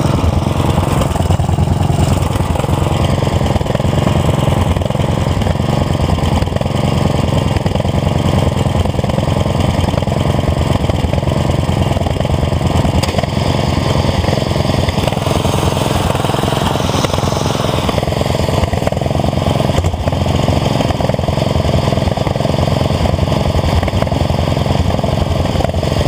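Small lawn tractor engine idling steadily, with an even, rapid low putter.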